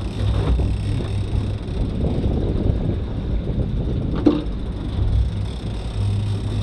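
Steady low rumble of a boat under way offshore, engine and wind noise together, with one sharp knock about four seconds in.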